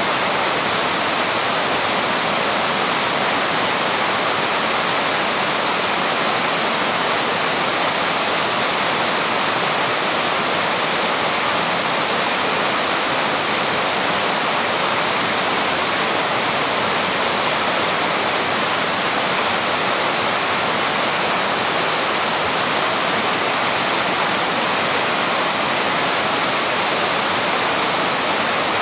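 Waterfall: water pouring steadily over a small falls, a constant even rush.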